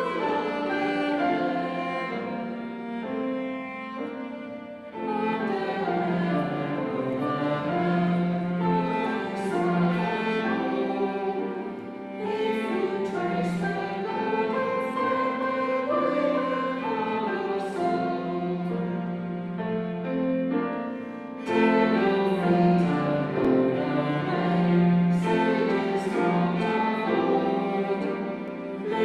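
A hymn performed in phrases, a melody with a bowed-string tone over accompaniment. Each phrase breaks off briefly before the next begins.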